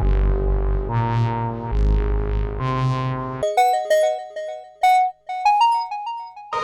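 Akta G-1 playing electronic tones: a few held chords over a deep bass, each about a second long, then a quick melody of short, bright, bell-like notes stepping up and down in pitch.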